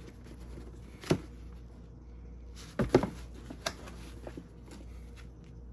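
A pair of leather high-top sneakers being handled with gloved hands: a few soft knocks and rubbing sounds as the shoes are turned over and set down on their cardboard shoebox, the loudest about three seconds in, with lighter taps after it.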